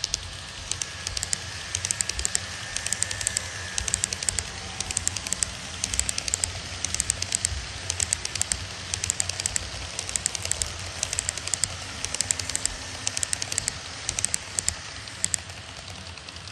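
HO-gauge model train running past close by, its metal wheels clicking in quick clusters over the rail joints, over a low steady hum. The clicking stops about a second before the end as the train clears.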